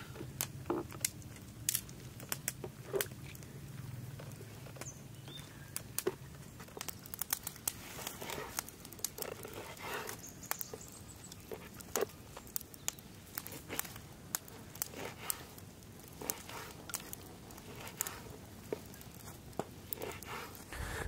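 Kitchen knife cutting raw lamb lung and windpipe on a wooden cutting board: irregular sharp taps of the blade striking the board, mixed with soft sounds of the spongy flesh being sliced.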